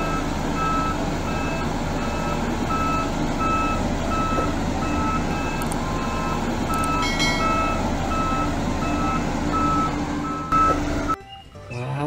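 Dynapac single-drum road roller's diesel engine running steadily, with its reversing alarm beeping at an even pace, about one and a half beeps a second. The sound cuts off suddenly about eleven seconds in.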